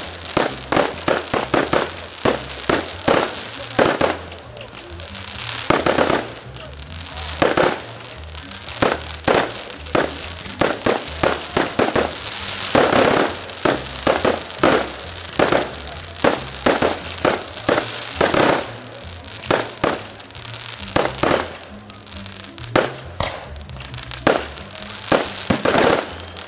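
Fireworks display: aerial shells and multi-shot cakes bursting in a string of sharp bangs at irregular intervals. The bangs often come several a second, with thicker runs at the start and about halfway through.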